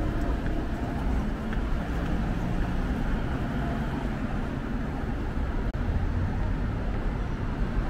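Busy city street ambience: a steady wash of road traffic with the murmur of a passing crowd, broken by a split-second dropout nearly six seconds in.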